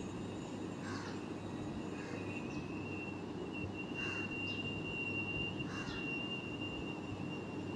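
Steady low background noise with a thin, high, steady tone, and a few brief faint chirps about one, two, four and six seconds in.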